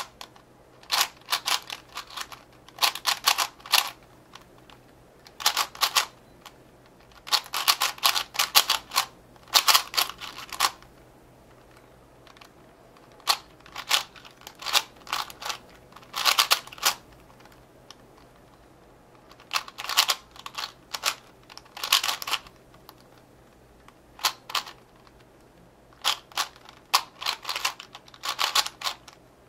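Maru 4x4 speedcube being turned quickly during a solve: bursts of rapid plastic clicking as the layers turn, broken by pauses of a second or more.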